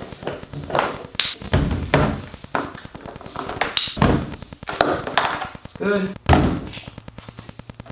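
Irregular knocks and clunks of gear being handled, about a dozen sharp hits spread over several seconds.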